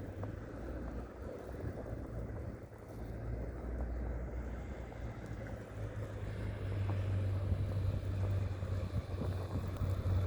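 Blizzard wind blowing against the microphone: a steady rushing noise with a low rumble that grows stronger in the second half.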